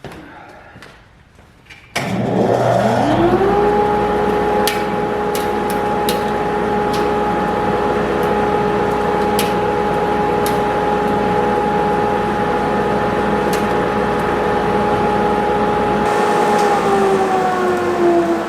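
A 2-horsepower dust collector switching on. Its motor and impeller spin up with a rising whine over about a second and a half, then run at a steady, loud high-pitched hum with scattered sharp ticks. Near the end it is switched off and the pitch starts to fall as it coasts down.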